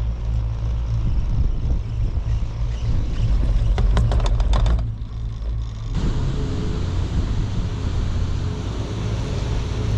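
Gondola cabin riding up the haul cable: a steady low rumble with wind on the microphone, and a rattling clatter from about three and a half to five seconds in as the cabin passes over a lift tower's sheave wheels.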